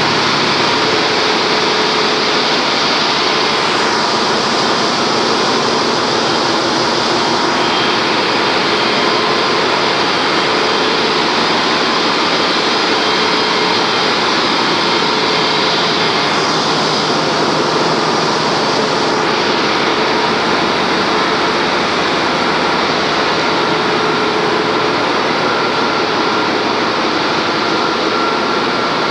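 Loud, steady din of a bulk carrier's engine room, with machinery running continuously and a few faint steady hums within it.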